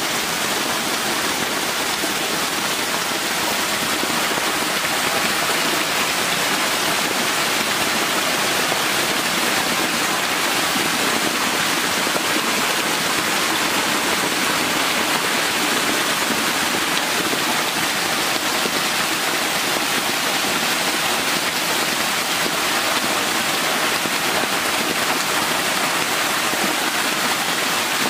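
Water pouring steadily from inlet pipes and hose jets into concrete fish tanks, splashing on the surface of the water, a constant rushing and splashing noise.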